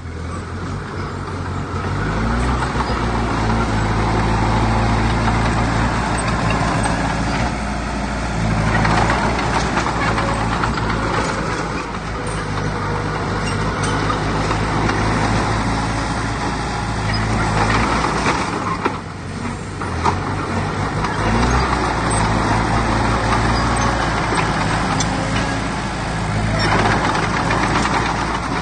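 Diesel engine of heavy earthmoving machinery running under changing load, its low note swelling and easing, with a brief drop about two-thirds of the way through.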